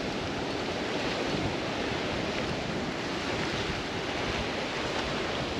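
Steady wash of small waves breaking and running over a shallow sand flat, with wind buffeting the microphone.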